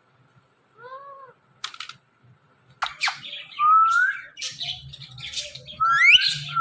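Indian ringneck parrot calling: a short arched call about a second in, a few sharp clicks, then from about three seconds on a busy run of rising whistles mixed with raspy chatter and squawks.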